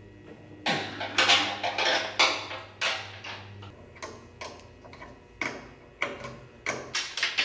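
Wrench working the hydraulic line fittings on a cab tilt hand pump: a string of irregular metal clicks and clinks, some louder knocks among them.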